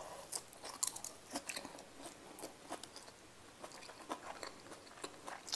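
Close-miked chewing of Caesar salad greens: soft, irregular crunches and wet mouth clicks, with one sharper click near the end.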